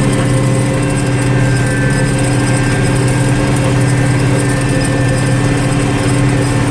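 International Harvester 1586 tractor's six-cylinder diesel engine running steadily under load, pulling a chisel plow, heard from inside the cab.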